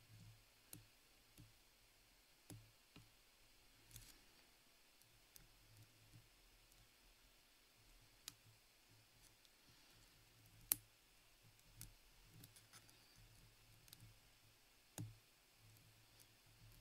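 Faint, irregular metallic clicks of a thin pick working the pin tumblers of an Assa Twin 6000 cylinder lock held under a tension wrench, one click every second or few, with a sharper click near the middle.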